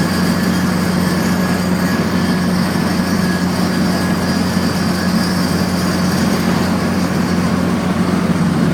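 Nissan 240SX drivetrain running with a loud, steady hum of unchanging pitch, which the owner blames on a newly fitted one-piece aluminum driveshaft, unsure whether it is normal or the u-joints need greasing.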